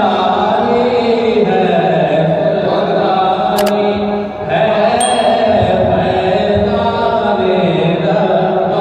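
A man chanting a devotional Sufi kalaam (naat or manqabat) without instruments, amplified through a hall PA. He holds long notes that glide slowly between pitches, with a short break a little over four seconds in.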